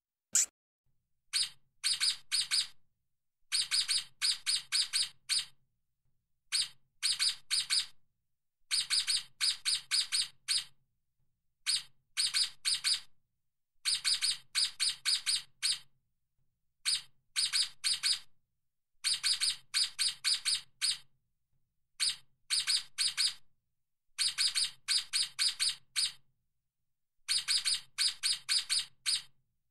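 Stoat (ermine) chirping: short runs of rapid, high, sharp chirps, several to a run, repeated every second or two with silent gaps between.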